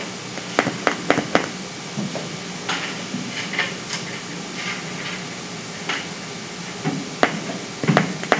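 Scattered sharp taps and clicks over a steady room hum: four in quick succession about half a second in, a few fainter scratchy sounds in the middle, and more clicks near the end.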